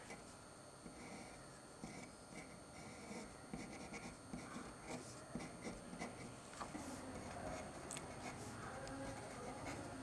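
Ink-filled fountain pen nib scratching faintly on paper in short, irregular strokes as lines are drawn.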